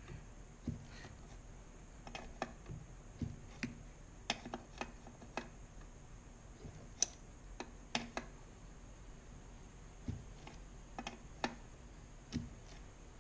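Irregular light metallic clicks and taps of a wrench working a brake line fitting loose at the master cylinder, as the threaded line nut is backed out.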